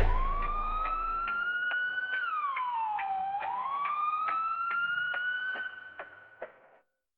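A single held musical tone with overtones, sliding slowly up, dipping down about three seconds in and gliding back up, over light, evenly spaced ticking percussion. It fades out near the end.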